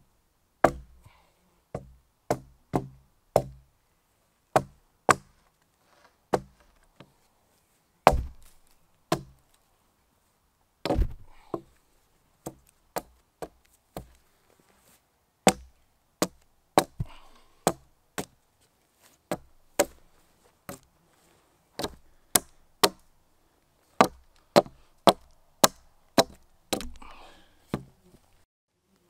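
Small axe chopping protruding branch stubs off a bark-covered wooden shelter pole: a long series of sharp, hard knocks, irregular at about one or two a second, with a few short pauses.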